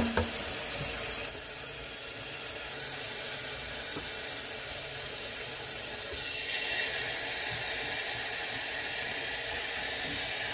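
Cold tap water running steadily onto cooked nopal strips in a stainless steel mesh colander in a metal sink, as hands toss and rub the strips to rinse off the slime. A sharp knock right at the start as the colander is shaken.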